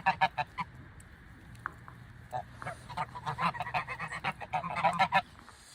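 A flock of geese honking in a chorus of quick, overlapping honks: a burst at the start, a short lull with a few single calls, then a longer run of rapid honking from about two seconds in that stops shortly before the end.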